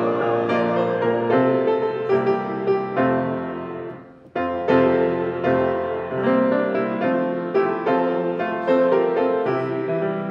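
Grand piano played solo, chords and melody in steady phrases. About four seconds in the notes die away to a brief pause, then playing resumes with a strong chord.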